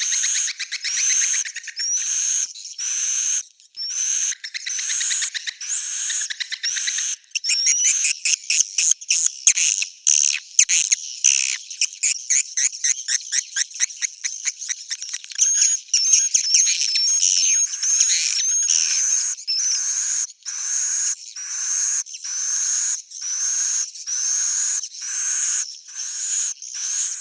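Swiftlet roosting call: edible-nest swiftlets twittering in repeated short chirps and rising squeaks, with a stretch of fast, evenly spaced clicking ticks in the middle. This is the lure sound played in swiftlet houses to make the birds roost and nest.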